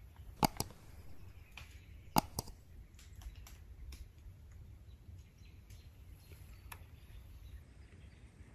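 Two sharp computer mouse-click sound effects about two seconds apart, each a quick double click, from a subscribe-and-bell button animation. Scattered faint ticks and a low rumble of outdoor air follow.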